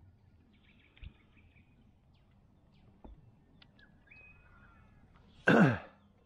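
Faint bird whistles and chirps over a quiet background with a couple of small knocks, then near the end a short loud call that falls steeply in pitch.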